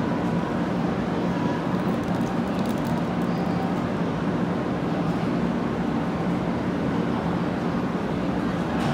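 Steady low hum of a stationary 500 Series Shinkansen train standing at the platform, its onboard equipment running, with station ambience.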